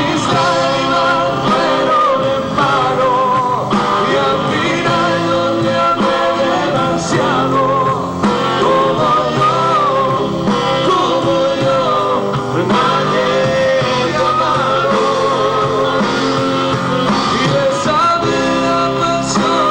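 A rock song with a sung vocal over guitar and band.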